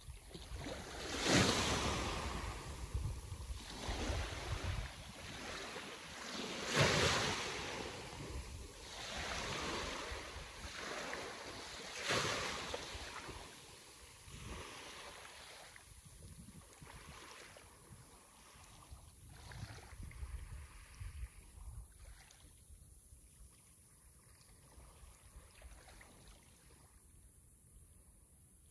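Sea waves breaking on the shore. Several swells surge in the first half, with the loudest near the start and about seven seconds in. After that they fade to a softer, quieter wash.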